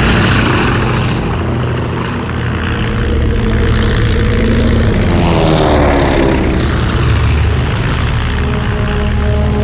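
Engine drone of a World War I propeller fighter plane in flight, steady and loud. About five seconds in, a plane sweeps past with its pitch sliding.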